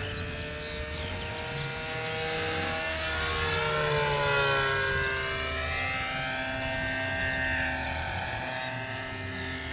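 Electric RC P-51D Mustang model flying past at full throttle, its motor and three-bladed propeller giving a buzzing, engine-like drone whose pitch rises and then falls as it passes, loudest about four seconds in. The shaking drone is a vibration the flyers take for something out of balance, perhaps the wobbly propeller spinner.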